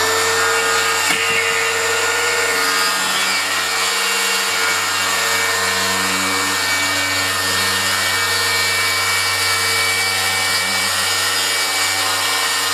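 Battery-powered circular saw on a guide track running steadily while cutting a long straight line through a wooden sheet. The motor holds its speed under load instead of bogging down as the blade bites into the wood.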